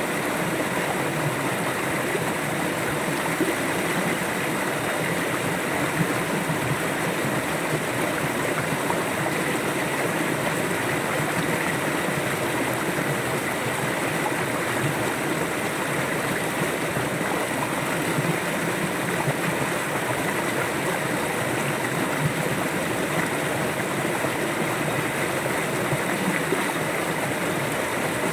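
River water flowing steadily over rocks, a constant rushing and babbling.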